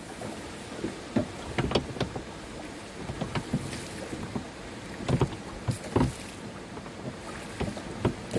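Canoe being paddled in to dock: paddle strokes in the water and a scattering of irregular knocks and thuds of the paddle and hull, over a steady rush of water and wind.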